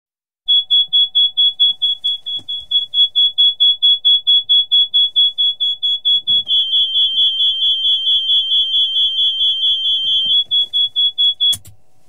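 Bell JetRanger helicopter's engine-failure warning siren heard in the cabin: a loud, high beeping tone pulsing about four times a second, the cockpit signal that the engine has failed. A second, slightly lower tone sounds with it for a few seconds in the middle, and a few faint knocks are heard. It cuts off with a sharp click near the end.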